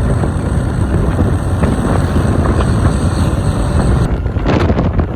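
Wind buffeting the microphone on a moving Honda Click 125i scooter, over steady road and engine noise, turning gustier near the end.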